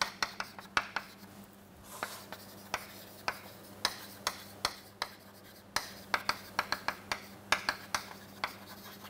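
Chalk writing on a chalkboard: an irregular run of sharp taps and short scratches, two or three a second, as a sentence is written out in chalk.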